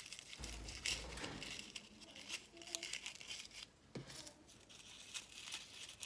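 Shredded paper and a cardboard paper towel tube crinkling and rustling in the hands in irregular small crackles, as bird treats are pushed into holes in the tube.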